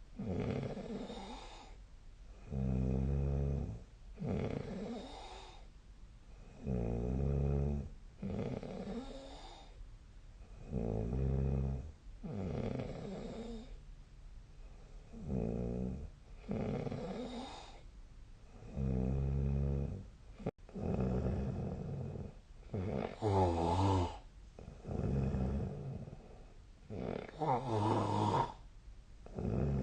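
A sleeping person snoring: a low, buzzing snore about every four seconds, each followed by a softer breath. The last two snores, near the end, are louder and reach higher.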